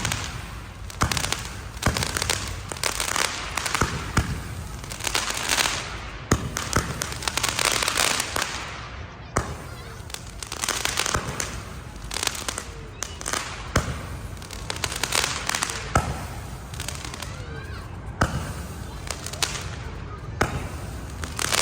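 Vietnamese Z121 50-shot fireworks cake firing shot after shot: repeated sharp bangs at irregular intervals of about one to two seconds, with hissing and crackling between them.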